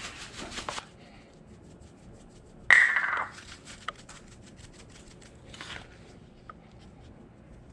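Cornmeal pouring from a bag into a plastic tub with a dry rustling hiss that stops about a second in. About three seconds in comes a short loud rattle, the loudest sound, then light rapid ticking and a brief soft shake as spice shakers are tapped over the cornmeal.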